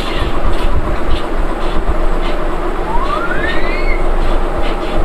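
Barber's scissors snipping hair about twice a second over a steady low rumble of background noise, with a short rising whistle-like tone about three seconds in.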